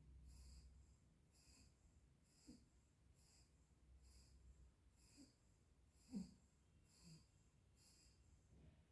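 Dog breathing faintly and rhythmically, about one breath a second, with a few short, soft snorts, the loudest about six seconds in.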